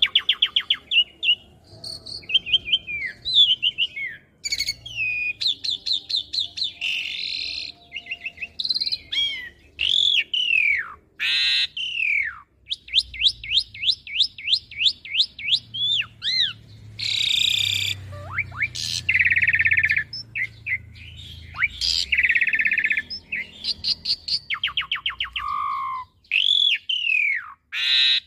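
An Asian pied starling (jalak suren) sings a long, varied song with barely a pause. It mixes rapid trills of repeated notes, downward-slurred whistles and harsh, noisy notes.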